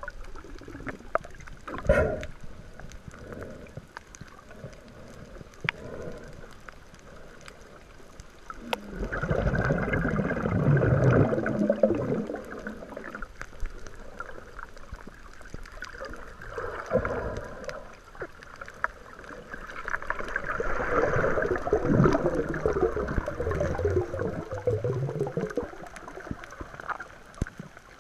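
Water splashing and gurgling as swimmers snorkel with fins, swelling in two louder stretches of a few seconds each, about a third of the way in and again past the middle, with scattered small clicks between.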